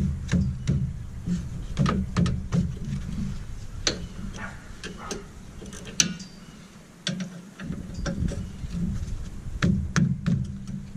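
Irregular clicks and light metallic clinks of hand tools and brake parts being handled during a pickup's rear brake job, over a steady low hum that drops out for about a second and a half past the middle.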